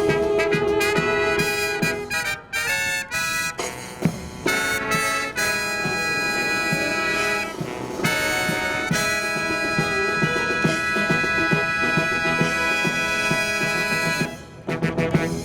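Brass marching band playing the closing bars of a tune, ending on a long held chord that stops near the end.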